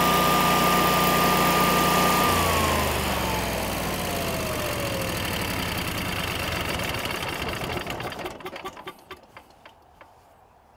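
Generac 20–22 kW home standby generator's air-cooled V-twin engine running steadily, then shut off about two seconds in: its whine falls in pitch as it winds down and dies away about eight seconds in. It is run briefly after an oil change to cycle oil into the new filter.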